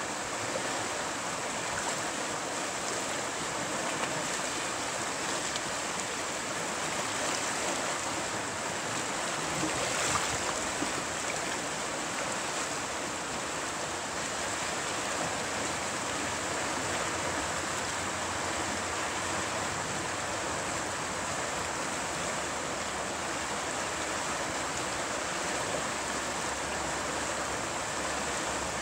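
River water rushing steadily over a small rapid, with the sound briefly louder about ten seconds in.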